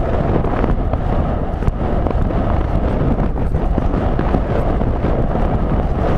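Heavy wind buffeting a helmet-mounted camera's microphone at the gallop, with the horse's galloping hoofbeats thudding under it.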